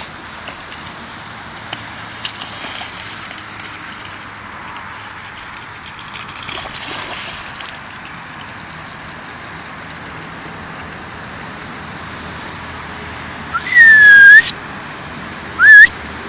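Two loud whistles near the end: a longer note that slides up and then bends, then a short rising one. They sound over a steady background hiss.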